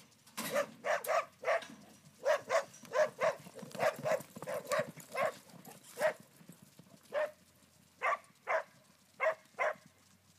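A dog barking repeatedly in short, sharp barks, often in pairs, stopping shortly before the end. Under the barks, the low hoofbeats of two horses galloping on arena dirt.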